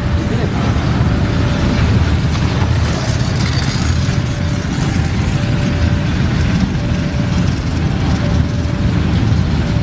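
A long coal train's open-top wagons rolling past close by: a steady heavy rumble of steel wheels on the rails, with faint short squeals coming and going throughout.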